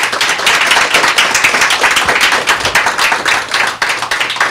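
Audience applauding, a dense round of clapping from many hands that begins to thin out near the end.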